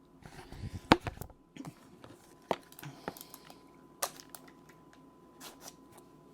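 Hands handling a 3D-printed plastic phone case and keyboard. There is rustling in the first second and a half, then a few scattered sharp plastic clicks and knocks, the loudest about a second in.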